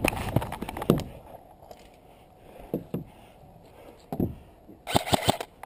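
Scattered footsteps and knocks of an airsoft player's gear as he moves among the barricades, with a quick run of sharp clicks about five seconds in.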